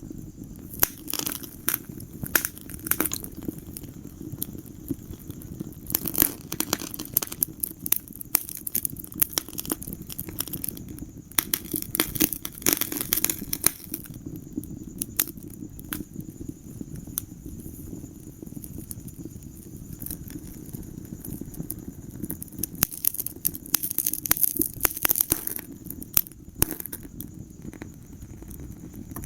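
Fire in a fireplace crackling, with sharp pops over a steady low rush of burning. The pops come thickest in three spells: near the start, through the middle, and again near the end.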